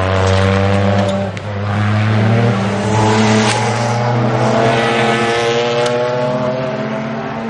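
GT race cars' engines at high revs as they pass on track, their pitch climbing as they accelerate, with a brief dip in the sound a little over a second in.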